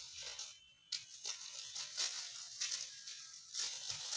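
Dry leaves and twigs crackling and rustling in irregular bursts as a puppy and a mongoose tussle on the leaf litter.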